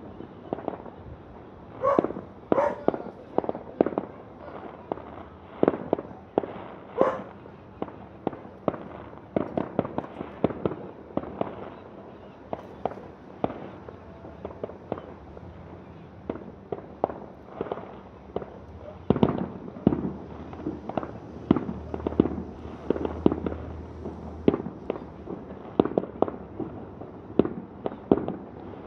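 Aerial fireworks display: a continuous, irregular series of shell bursts and bangs, often several a second, with the loudest bangs about two seconds in, about seven seconds in and from about nineteen seconds on.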